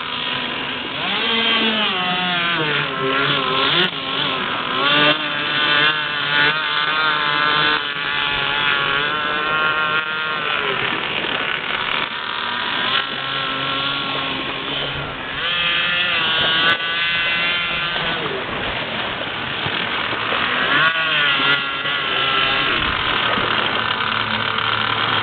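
RCMK inline-twin two-stroke petrol engine of a 65-inch GTX radio-controlled boat running on the water, its pitch rising and falling again and again as the throttle is opened and eased.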